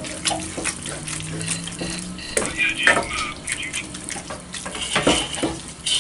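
Lo mein noodles and vegetables sizzling in a hot square nonstick pan while being stirred and tossed with tongs and a spatula. Scattered scrapes, clicks and knocks of the utensils against the pan run over a steady frying hiss.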